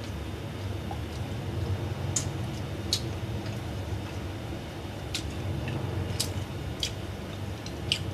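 Someone eating with chopsticks: about half a dozen short, sharp clicks of chopsticks and mouth noises spread through, over a steady low hum.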